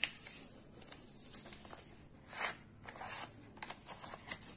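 Sheet of paper being folded and pressed flat by hand on a tabletop: a few short rustles and light clicks, the loudest rustle a little past halfway.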